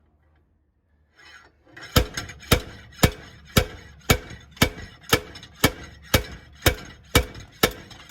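Steady, evenly spaced hammer blows on metal, about two a second, each with a short ring, starting about two seconds in: pounding on a stuck wheel hub to free it from the axle.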